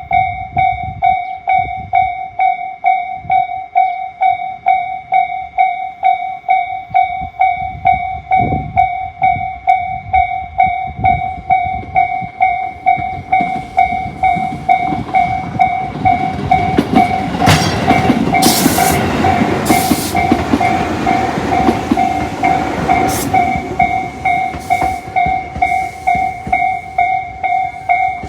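Japanese level-crossing electronic warning bell of the Tobu Tojo type, dinging about twice a second. Midway a Tobu Isesaki Line train passes over the crossing, its wheels clacking over rail joints. The bell stops at the very end.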